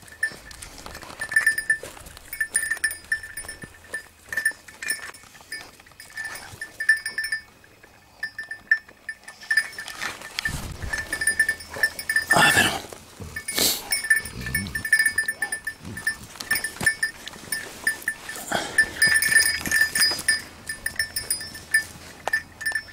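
A small bell on a hunting dog's collar jingling in uneven runs as the dog moves about, over rustling through dry grass and stubble, with a few louder rustles or handling knocks about halfway through.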